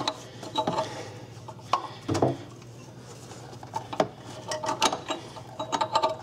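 Metal tools clicking and clinking in short irregular clusters as an oxygen sensor is tightened into a car's exhaust with an O2 sensor socket.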